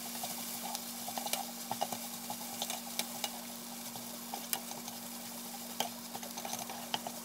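Bean sprouts, egg and shrimp stir-frying in a pan: a steady sizzle with frequent clicks and scrapes of a spatula against the pan.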